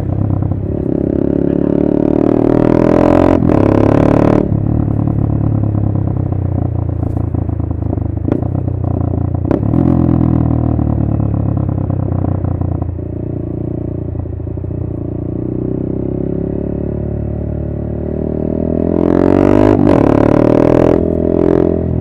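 Honda MSX125 (Grom) single-cylinder four-stroke engine running through a TYGA full stainless race exhaust with carbon can, heard from the rider's seat. It revs up at the start, with the note breaking briefly about three and four seconds in, then holds a steady cruise. It drops off about halfway through and revs up again near the end, with two more short breaks.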